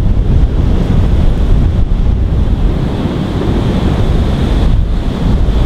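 Strong gusting wind buffeting the microphone: a loud, steady, rumbling roar with no clear engine or whistle standing out above it.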